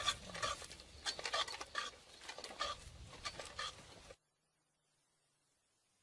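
Metal pieces clinking and rattling as they are handled, a quick run of light clinks that cuts off abruptly about four seconds in, leaving near silence.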